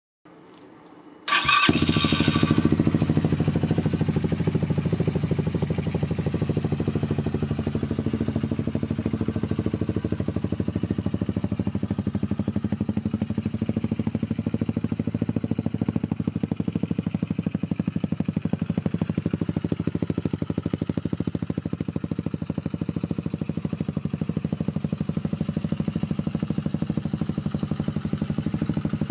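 Loncin 250cc dirt bike's air-cooled single-cylinder engine starting about a second in, running briefly higher as it catches, then idling steadily.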